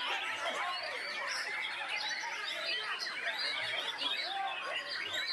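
Many caged white-rumped shamas singing at once in a dense, unbroken chorus of overlapping whistles, trills and chirps.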